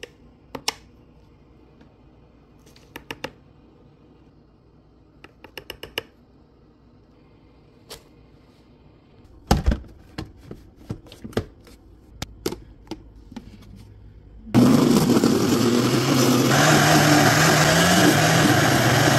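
Scattered light taps and clicks, with one heavier thump and a run of knocks after it, as a blender pitcher is filled and set on its base; then a countertop blender starts abruptly and runs loud and steady, blending a berry and spinach smoothie, its motor pitch climbing near the end.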